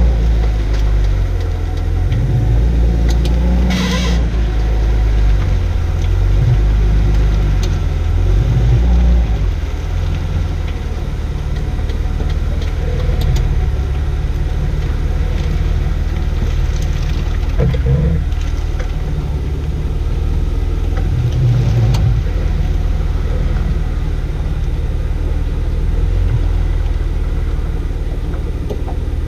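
A 2004 Jaguar XJ6 (X350) under way, with a steady low rumble of road and engine noise that swells and eases, and one brief sharp noise about four seconds in.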